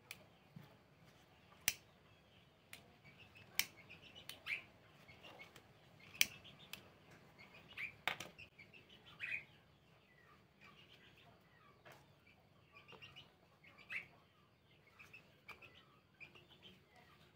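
Fabric ribbon and a cardboard template being handled on a table: soft rustling and scattered small clicks, a few of them sharper. Faint bird chirps in the background.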